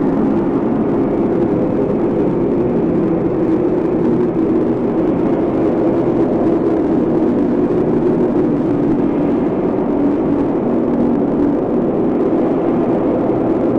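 Stomach growling, a steady low rumble with wavering tones that runs on without a break.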